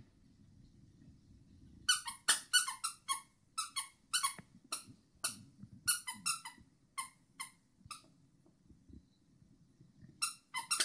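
A dog biting a plush squeaky toy, making it squeak over and over in short, high squeaks, a few a second. It pauses for about two seconds near the end, then squeaks a few more times.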